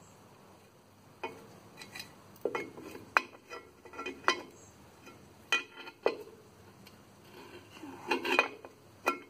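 Metal clinks and rattles of a drum-brake shoe and its coil return spring knocking against the steel backing plate as they are fitted by hand. The sharp knocks start about a second in and come irregularly, with a cluster near the end.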